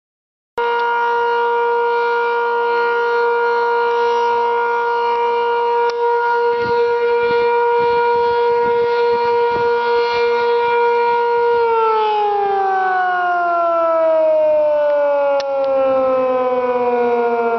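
Sentry 7V8 outdoor warning siren sounding at a steady pitch, cutting in abruptly at full pitch about half a second in. From about twelve seconds in it winds down, its pitch falling steadily.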